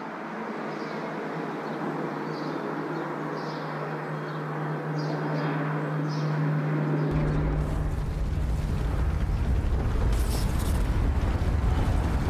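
Outdoor ambience with a steady hum and scattered short high chirps. About seven seconds in, a deep earthquake rumble sets in abruptly and keeps growing louder.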